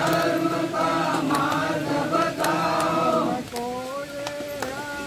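Group of voices chanting a devotional line together in unison, then a single voice taking up the next line about three and a half seconds in.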